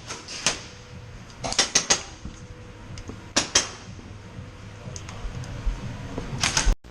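Scattered sharp clicks and snaps from gel blasters firing and gel balls striking, some in quick groups of two or three, over a quiet background.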